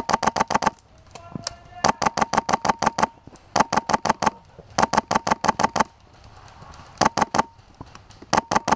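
Airsoft guns firing full-auto in six rapid bursts of about a dozen shots a second, each burst carrying a steady whine under the shots, with short pauses between bursts.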